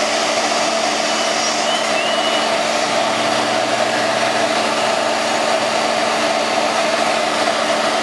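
XCMG road recycling machine running steadily at work on the road surface: a loud, even mechanical drone with a steady hum.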